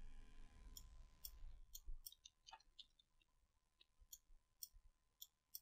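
Near silence, with faint clicks scattered irregularly through it.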